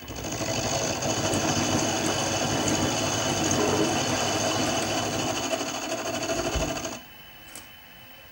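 Benchtop mini milling machine running with its end mill in the workpiece: the spindle motor starts abruptly, runs steadily with a few high steady tones for about seven seconds, then stops abruptly.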